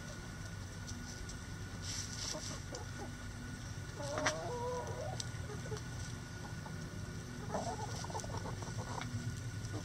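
Chickens clucking softly while they forage, with one louder call about four seconds in, over a steady low hum.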